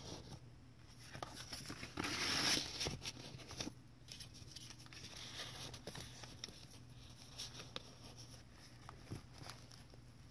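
Paper rustling with small taps and clicks as a tag is slid in and out of a paper pocket and the journal's pages are handled; the loudest rustle comes about two seconds in.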